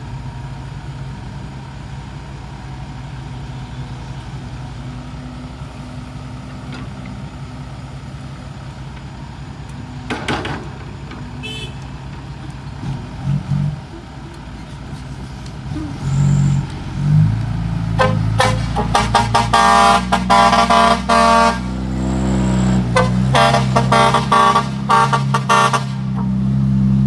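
Diesel dump truck idling steadily while an excavator loads it, with a brief clatter about ten seconds in. The engine then revs up as the truck pulls away, and its horn sounds a rapid string of loud toots in two runs, from about two-thirds of the way through to near the end.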